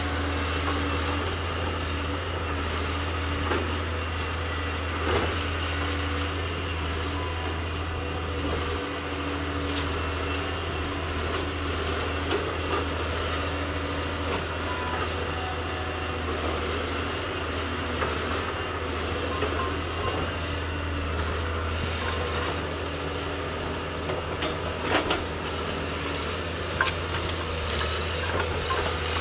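Caterpillar 320C excavator's diesel engine running steadily under load while the boom and bucket work. A few sharp cracks stand out, around five seconds in and again near the end.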